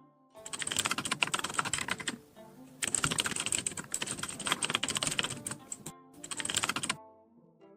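Typing on a computer keyboard: fast, dense key clicks in three runs separated by short pauses, over faint plucked-string music.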